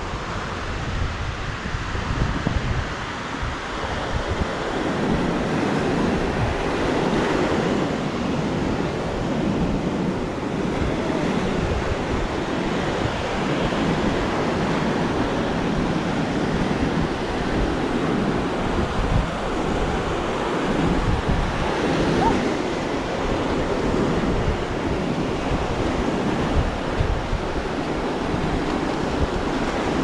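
Sea surf washing onto a sandy beach, a steady rushing that swells a little about four seconds in, with wind buffeting the microphone.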